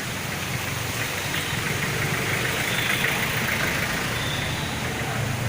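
A motor vehicle's engine running close by, a steady low pulsing, over a constant rushing background that swells for a moment mid-way.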